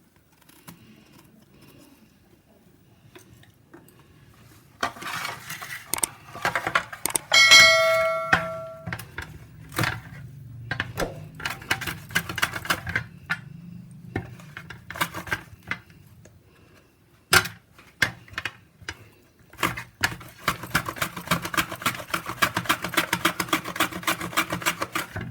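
Raw plantain being peeled: repeated scraping strokes of a peeler or knife shaving off the thin outer skin, quickening into a fast, even run near the end. About seven seconds in, a metal utensil clangs once and rings briefly.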